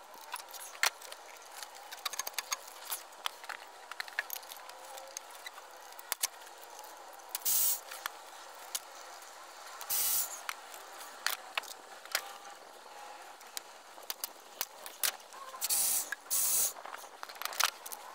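Socket ratchet clicking in short runs as bolts are worked loose, with a few short whirring bursts from a cordless ratchet spinning bolts out.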